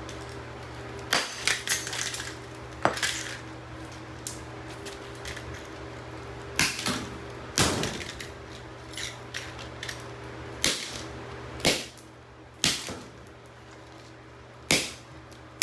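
A hammer striking plastic GFCI outlet receptacles about ten times at uneven intervals, with sharp hard knocks. The receptacles hold up under the blows rather than breaking apart.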